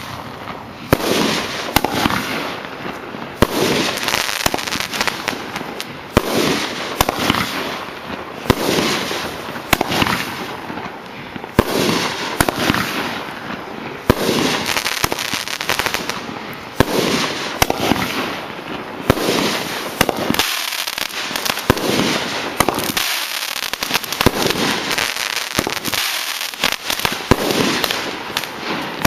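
A 16-shot consumer firework cake firing shot after shot, a sharp bang about every one to two seconds. Dense crackling fills the gaps between bangs as the bursting stars fall.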